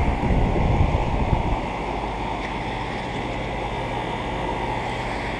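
Outdoor central air conditioner condensing units running with a steady low hum of compressor and fan, with a heavy low rumble of wind on the microphone in the first second and a half.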